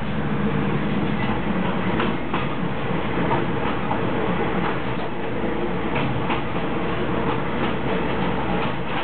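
SRT Maeklong line diesel railcar running along the track, heard from inside its driver's cab: a steady running noise and low hum, with irregular clicks of the wheels over rail joints.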